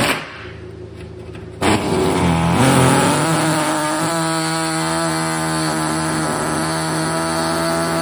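Handheld power cutting tool starting up about a second and a half in, rising in pitch as it spins up to speed, then running steadily while cutting out the car's front-end body around a hole.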